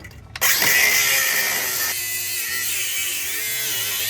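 Angle grinder starting about half a second in and cutting through a rusted-on, frozen shock absorber: a loud, steady hiss with the motor's pitch wavering under load.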